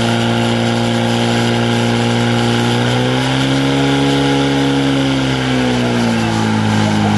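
Portable fire pump's engine running at full throttle, pumping water through two hose lines to the nozzles. Its note rises a little about three seconds in and drops back near the end.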